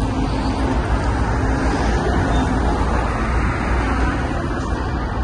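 Steady, unbroken noise of city road traffic, heaviest in the low rumble.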